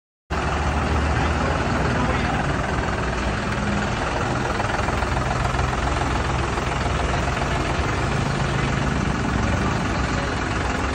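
John Deere tractor's diesel engine running steadily at low revs, starting abruptly a moment in.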